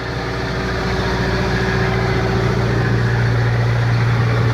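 A fishing boat's engine running steadily under way, a constant low drone.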